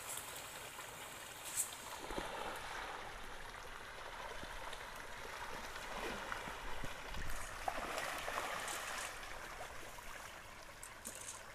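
A school of pangasius catfish splashing and churning at the pond surface as they feed on thrown feed pellets: a steady watery rush with a few sharper splashes.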